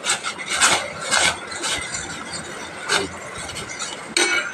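Metal ladle stirring semiya (vermicelli) payasam in a stainless steel pot, scraping and knocking against the pot several times, roughly every half second. Near the end the steel scrapes with a brief high-pitched squeal. The vermicelli has just gone into the boiling water.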